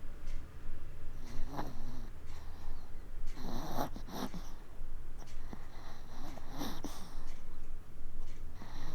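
Maltese puppy snoring in its sleep, a snoring breath roughly every two to three seconds.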